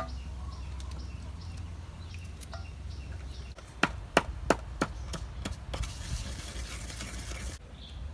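Light knife cuts through green bananas, about one a second. Then a wooden pestle pounds in a clay mortar, about five sharp knocks roughly a third of a second apart. A steady hiss follows for nearly two seconds and cuts off near the end.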